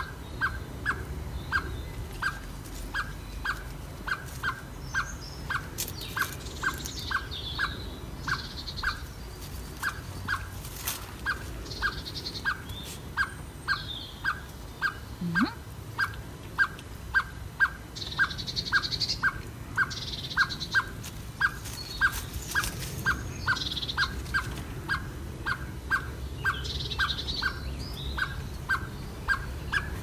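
A bird calling with one short note repeated evenly about twice a second, with brief snatches of higher birdsong in between.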